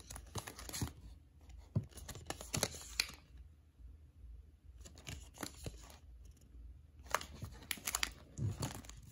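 Crinkling and rustling of a squishy's clear OPP plastic bag and card hang tag being handled, in irregular bursts, with a quieter stretch in the middle.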